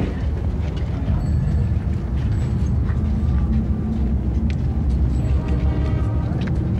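Street ambience: a steady low rumble with the faint murmur of a crowd's voices.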